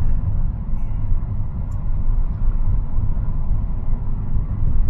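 A car driving, heard from inside the cabin: a steady low engine and road rumble.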